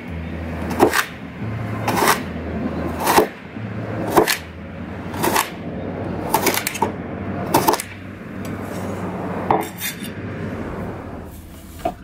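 Chef's knife chopping cucumber on a wooden cutting board, a sharp knock about once a second.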